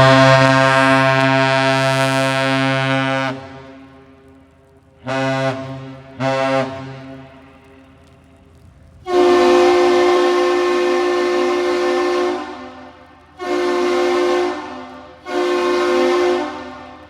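Freighter American Mariner's horn sounding the captain's salute, one long and two short blasts, answered by a second, higher-pitched horn with the same long-short-short pattern, the Duluth Aerial Lift Bridge's reply.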